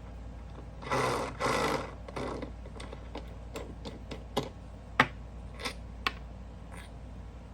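Fidget spinner bearing being pushed into its press-fit seat by hand: a short scraping rub about a second in, then scattered light metallic clicks and taps.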